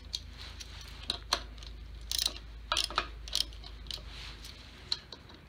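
Light, irregular metallic clicks and taps of a hex key on a bicycle crank arm's clamp bolts as they are snugged down a quarter to half turn at a time, over a steady low hum.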